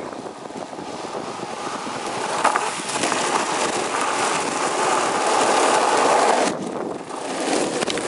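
Longboard wheels rolling fast on asphalt: a steady rolling noise that grows louder over the first few seconds and drops off suddenly about six and a half seconds in.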